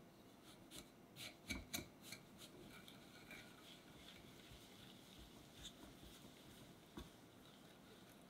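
Silicone whisk stirring eggs and sugar in a glass bowl over a pan of hot water: a quick run of soft taps against the glass about a second and a half in, then faint swishing of the liquid, with one more tap near the end.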